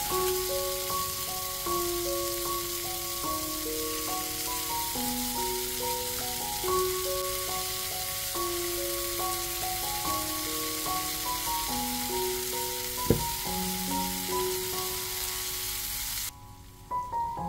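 Smashed beef patties and onion rings sizzling steadily in a cast iron skillet as cheese melts on top, over a simple melody of steady notes. A single sharp knock sounds about 13 seconds in, and the sizzle cuts off suddenly near the end while the melody goes on.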